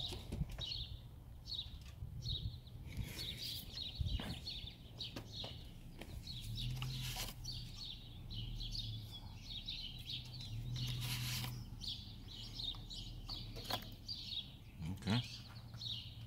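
Small birds chirping over and over, in short high calls, over a low steady hum.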